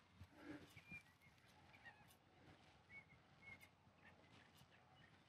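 Near silence, with a few faint, short, high bird chirps scattered through it.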